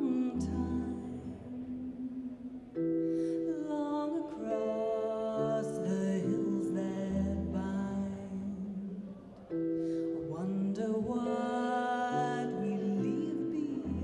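Slow, gentle music of sustained notes with a singing voice. It moves in a cycle that repeats about every seven seconds, each cycle opening on a deep low note.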